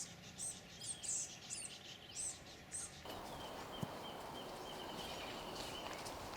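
A small bird chirping: short, high chirps about twice a second for the first three seconds. Then the chirps stop and there is a faint even hiss with a thin, steady high tone.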